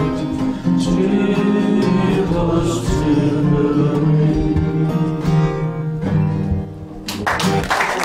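Man singing the closing line of a folk song to his own acoustic guitar, with long held notes, the song ending about seven seconds in. The audience then begins to applaud.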